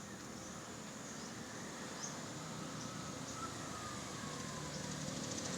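Faint, steady outdoor background noise, with a faint tone gliding slowly downward through the middle.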